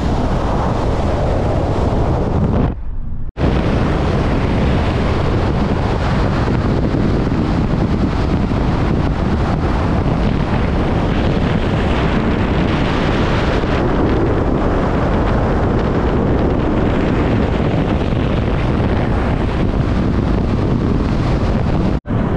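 Loud, steady rush of wind buffeting the microphone, with a brief dropout about three seconds in.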